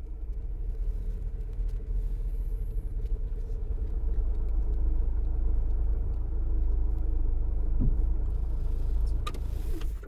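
Car driving, heard from inside the cabin: a steady low rumble of engine and road noise with a faint hum above it, growing louder about four seconds in.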